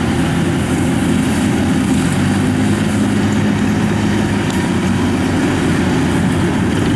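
Kubota DC-70 rice combine harvester running steadily as it cuts and threshes rice, its diesel engine giving a low, even drone.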